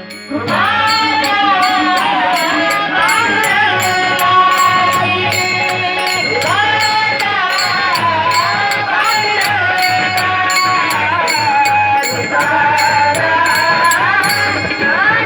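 A female singer holding long notes with sliding ornaments, over music with a quick, steady beat of sharp percussion strokes.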